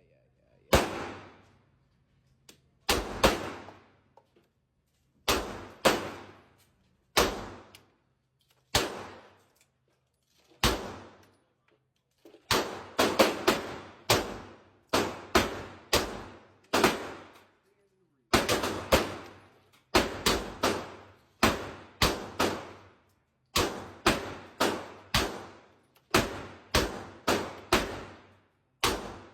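Gunshots fired repeatedly at a shooting range, about thirty in all, each a sharp crack with a ringing tail. They come one to two seconds apart at first, then in quicker strings from about halfway through.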